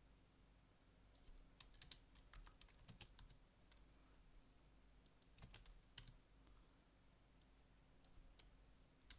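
Faint computer keyboard keystrokes in short irregular bursts: one cluster a second or two in, another about halfway, and a few taps near the end, over a faint steady hum.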